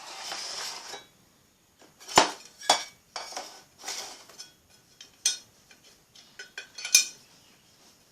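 A brief rustle, then a series of sharp metallic clinks and clatters, like small metal parts or tools knocking together. The loudest come about two seconds in and again near the end.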